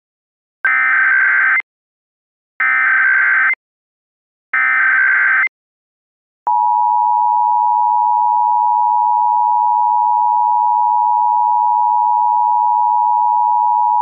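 Emergency Alert System tones: three one-second bursts of SAME digital header data, about a second apart, then the steady two-tone EAS attention signal (853 and 960 Hz) starting about six and a half seconds in.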